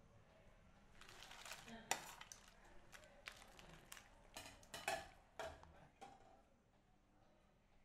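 Metal spoon clinking and knocking against the rim and sides of an aluminium soup pot, a quick irregular run of sharp clicks, as dried bean curd sheets are pushed down into the broth.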